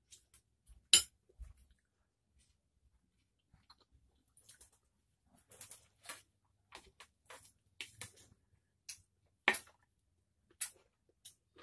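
Eating by hand: sparse clicks and crunches from fingers working rice and fish on a plate and from chewing, with a sharp click about a second in and another late on.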